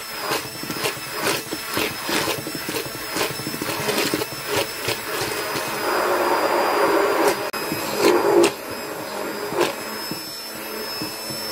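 Hand-held immersion blender motor running steadily while whipping very cold whipping cream in a stainless steel bowl, with frequent light clicks and a louder churning stretch about six seconds in. The cream is starting to thicken toward semi-whipped.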